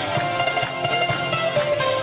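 Folk music led by plucked string instruments, playing steadily.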